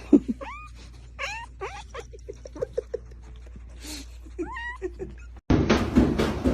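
A pet animal making several short calls that rise in pitch, with quieter short pulses between them. About five and a half seconds in, it cuts to a louder, steady rushing noise.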